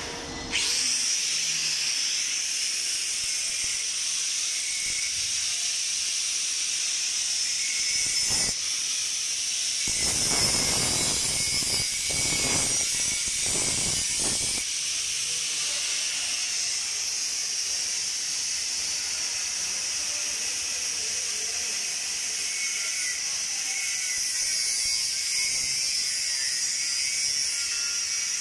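Handheld electric angle grinder spinning up about half a second in and running with a steady high whine against a metal stair-railing bar. It stops and restarts briefly around eight seconds in, and the sound thickens for a few seconds after ten seconds as the disc bites into the metal.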